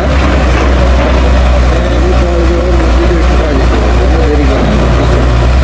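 Tata Hitachi EX200LC excavator's diesel engine running steadily with a heavy low hum as the machine swings and digs.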